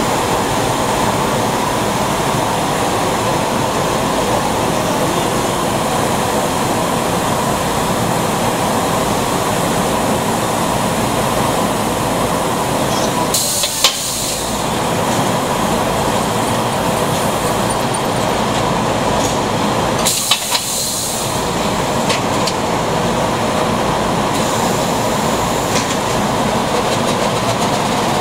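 Plastics-processing machinery running with a steady mechanical din, broken by two brief bursts of high-pitched noise, one about halfway through and another a few seconds later.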